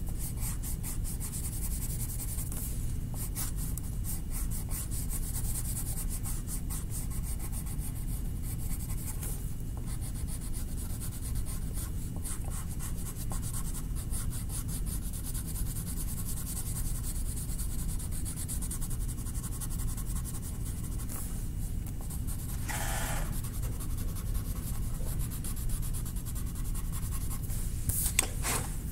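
Colored pencil rubbing on paper in quick back-and-forth strokes, shading an area in light gray, over a steady low hum.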